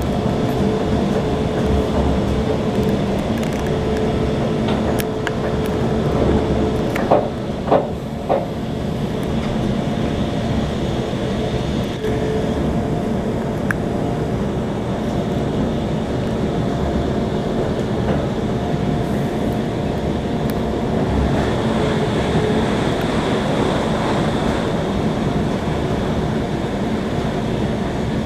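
Train running along the rails: a steady rumble with a faint steady whine, broken by a few sharp knocks about seven to eight seconds in.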